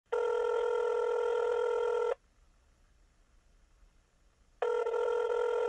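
Telephone ringback tone heard down the line while a call rings through to voice mail: one steady electronic ring about two seconds long, then a pause, and a second ring starting near the end.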